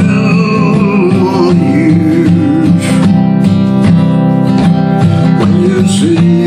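Dreadnought acoustic guitar strummed in a slow country-blues rhythm. A man's voice holds long, wavering sung notes over it for the first few seconds, drops out, and comes back near the end.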